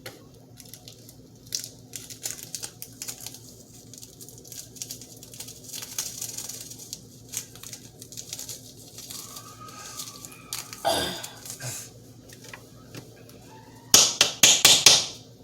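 Handling noises from slime-making: scattered clicks, crinkling and scraping of plastic and sticky material, ending in a loud burst of rapid rattling strikes about a second before the end.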